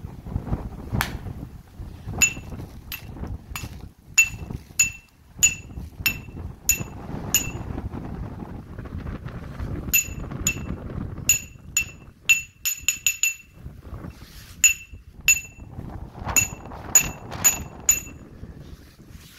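Repeated sharp metallic strikes, each ringing briefly with a clear high tone, coming irregularly and in a quick flurry about two-thirds of the way through, over a low wind rumble.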